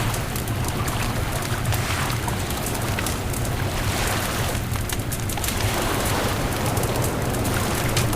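Bonfire crackling, many sharp little pops and snaps over a steady low rush of wind and surf.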